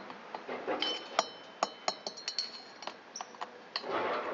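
Small metal-on-metal clinks as an Allen key and the cylinder base bolts are worked into a two-stroke trimmer engine's cylinder by hand. There is a string of sharp ticks, and about a second in a few of them ring briefly.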